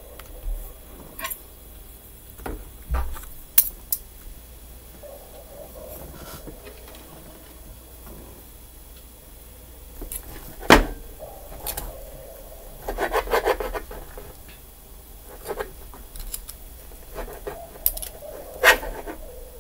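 Cutlery clinking and scraping on a plate while pancakes and waffles are cut and eaten: scattered sharp knocks and clicks, the loudest a single knock a little past the middle, then a longer stretch of rasping scrapes.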